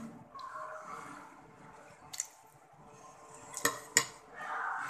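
Close-up eating sounds: wet chewing and slurping of stir-fried noodles, with a metal spoon clinking against the plate four times, the two loudest clinks close together about three and a half seconds in.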